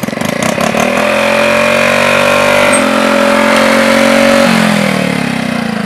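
Small motorcycle engine running at steady speed as the bike comes up and passes close by. Its pitch drops about four and a half seconds in as it goes past, and the sound fades away near the end.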